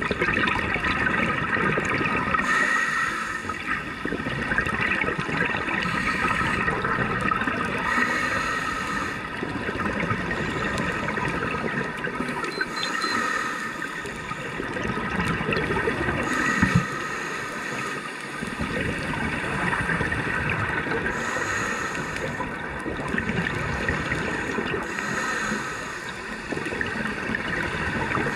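Scuba diver breathing through a regulator underwater: a rush of hiss and bubbles returns every few seconds, over a steady hum.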